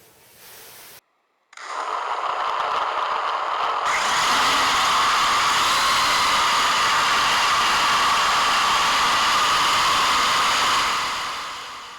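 MJX Bugs 3 quadcopter's brushless motors and triblade propellers whining steadily in flight, as picked up by the onboard camera. The whine starts after a brief dropout, builds to a full steady pitch, and fades out near the end.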